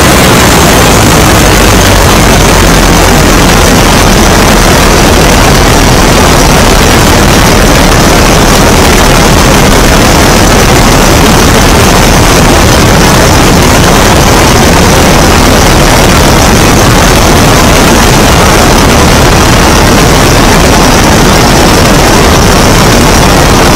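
Great Lakes biplane's engine and propeller running in flight, mixed with heavy wind rush over the wing-mounted camera's microphone. Loud and steady throughout.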